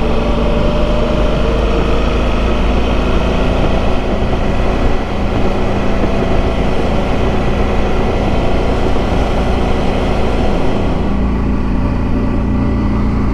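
Motorcycle engine running steadily under way, mixed with dense wind and road noise, the wind noise easing somewhat near the end.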